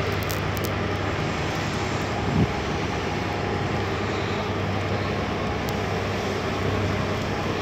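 Ferry's engines droning steadily, a constant low hum under a broad rushing noise, with one short knock about two and a half seconds in.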